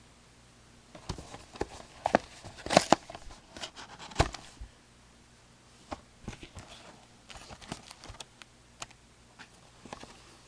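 Sports card packs and their cardboard hobby box being handled: a run of light taps, knocks and rustles as the packs are taken out and set down, with the sharpest knocks about three and four seconds in.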